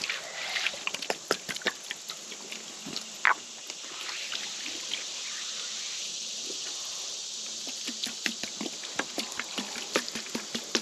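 Water poured from a plastic jug onto freshly sawn beech boards, spattering and trickling over the wood, with a steady stream for a few seconds in the middle.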